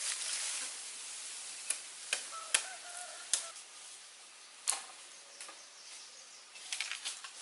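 A handful of sharp, irregularly spaced snaps and knocks of dry bamboo and twigs among leaf litter, with a quick cluster near the end, over a faint steady hiss. A faint short call sounds about three seconds in.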